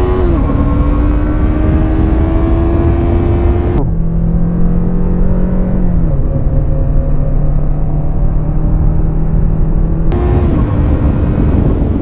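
Yamaha R3 motorcycle's parallel-twin engine pulling under acceleration, with heavy wind noise on the microphone. The engine note climbs steadily, then cuts to a lower engine note about four seconds in that drops once about six seconds in, and cuts back near ten seconds.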